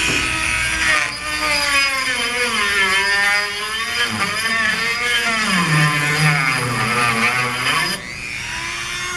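Handheld rotary tool (Dremel) with a sanding drum running at high speed on the condenser's line fittings, its whine dipping and recovering in pitch as it bears down and eases off. Near the end it is switched off and winds down with a falling whine.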